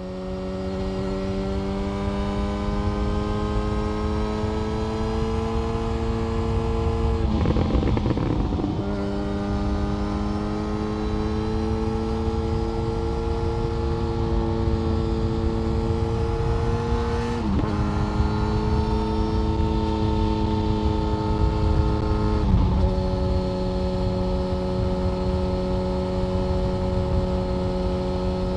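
Yamaha FZ1 Fazer's inline-four engine running hard under way, its exhaust note holding a steady high pitch that climbs slowly. The note breaks three times for gear changes, about a quarter, three fifths and four fifths of the way through.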